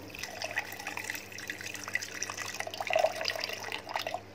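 Water poured in a steady stream into a stainless-steel mixer-grinder jar partly filled with water and mint leaves, splashing and bubbling as it fills.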